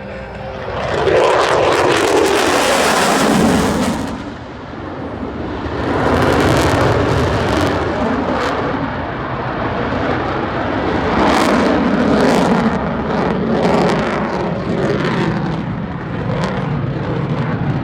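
F-22 Raptor fighter jet flying a demonstration pass, its twin afterburning turbofans making a loud roar. The roar swells and fades several times, loudest near the start, about six seconds in and about eleven seconds in.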